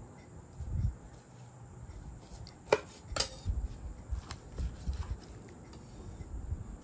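Chef's knife slicing through smoked meat on a cutting board, with soft scattered thuds of the blade and meat on the board and two sharp knocks a little under halfway through.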